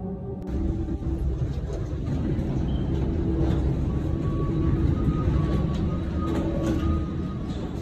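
Airport gate ambience inside a jet bridge: a steady low rumble with a faint hum from parked jets and ground equipment, and a few light knocks. Background music cuts off about half a second in.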